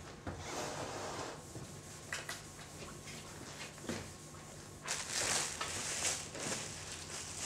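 Chalkboard being wiped with a sponge eraser: uneven rubbing strokes, with a louder hissing stretch about five seconds in. A steady low hum runs underneath.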